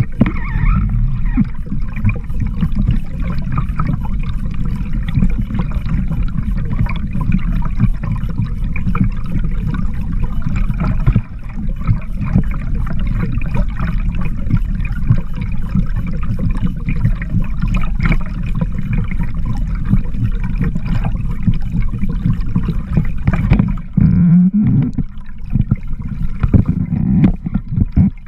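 Underwater recording of a kokanee trolling rig (dodger and spoon) being towed: a steady low rush of water moving past, scattered with light ticks. It dips briefly with a wavering low gurgle about 24 seconds in.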